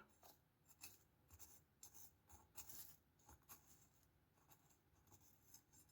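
Faint, irregular scratching and rustling of fingers digging a hollow in potting mix in a small pot.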